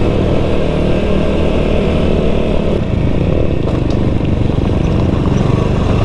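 Small motorcycle engine running under way, heard from on the bike with a steady rush of riding noise; the engine note changes a little about halfway through.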